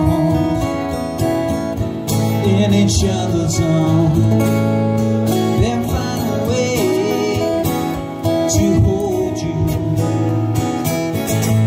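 Live acoustic guitars strummed and picked, with a man singing a slow song over them.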